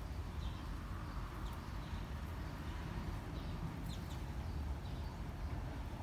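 Sparrows chirping now and then in short, faint calls over a steady low rumble.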